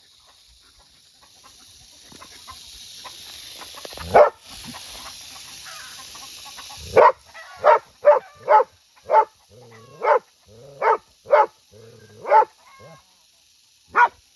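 A rattlesnake's rattle buzzing, a high steady hiss that grows louder over several seconds. A German Shepherd barks at it once about four seconds in, then gives a run of about ten barks from about seven seconds, roughly one a second, and the rattle stops as the barking starts.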